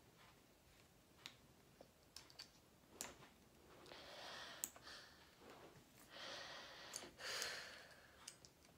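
Faint handling sounds from a paracord leash and its clip being worked into place: a few soft clicks and short stretches of rustling.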